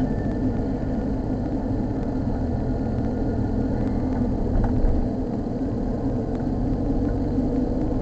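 Steady low road and engine rumble of a car driving at road speed, heard from inside the cabin.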